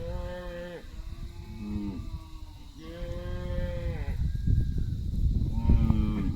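Cattle calling with four drawn-out moos, the third the longest and the second the shortest, over a steady low rumble.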